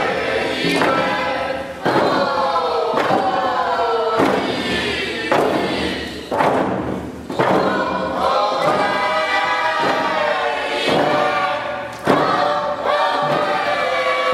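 A group of voices singing a First Nations song together in unison, with a steady thumping beat about once a second.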